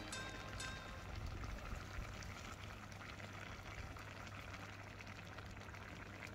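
Coconut milk pouring from a plastic measuring jug into a clay pot of banana stem curry: a faint, steady pouring and splashing of liquid.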